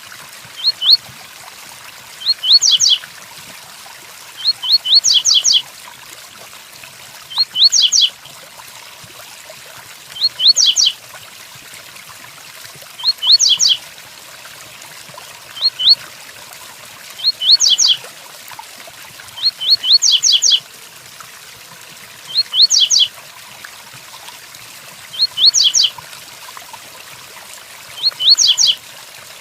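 Double-collared seedeater (coleiro) singing its 'tui-tui' song: short phrases of three or four quick, high notes, repeated about every two and a half seconds, about a dozen times, over a steady hiss of rain.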